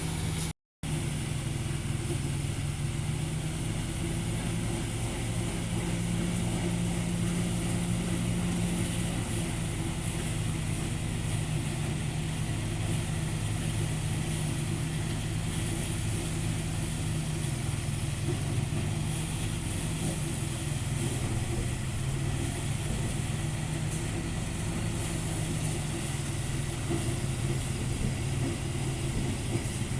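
Engine running steadily at an even speed, a constant hum with a broad rushing noise over it, broken by a total drop-out of under a second just after the start.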